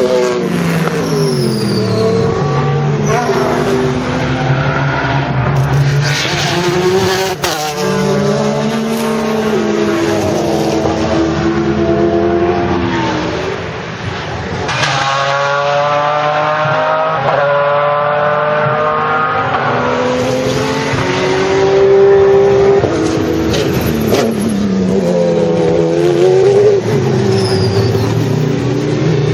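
Pagani Zonda C12 GR race car's Mercedes-AMG V12 at racing speed, its loud engine note climbing through the gears and dropping away under braking several times, with one long run of upshifts through the middle.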